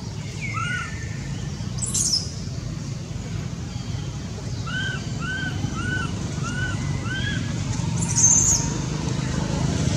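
Short arched animal calls: one about a second in, then a run of five at about two a second midway. Two brief scratchy noises come about 2 s and 8 s in, over a steady low hum.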